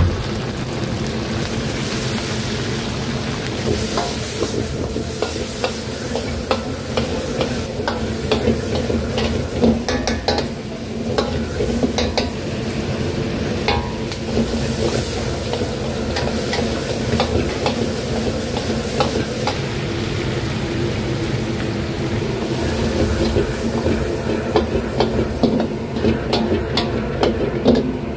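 Stir-frying in a wok: food sizzling while a metal utensil scrapes and clinks against the pan, over a steady low hum.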